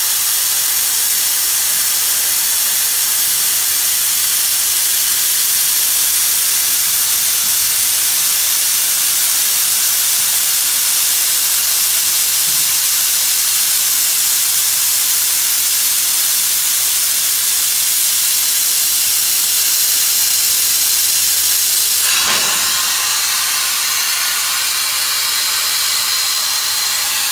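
Steady, high-pitched hiss of the air assist blowing compressed air through the CO2 laser head's nozzle as it cuts plywood. About 22 seconds in, the hiss shifts briefly and drops a little, then carries on.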